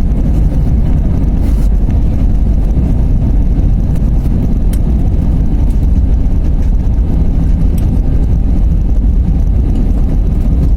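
Steady, loud low rumble inside an airliner's passenger cabin during landing: engine and airflow noise with no change in pitch.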